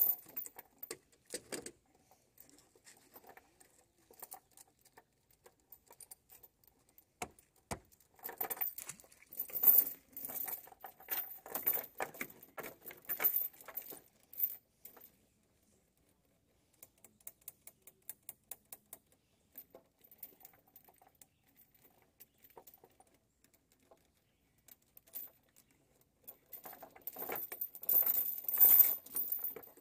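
Steel link chain clinking and rattling in irregular bursts as it is handled around a car jack and a dock joist, with one sharp click about eight seconds in.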